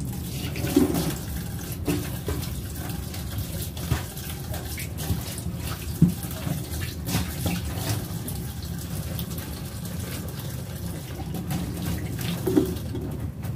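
Kitchen tap running into a stainless steel sink, the stream splashing over hands held under it, with a few knocks, the sharpest about six seconds in. The water stops just before the end.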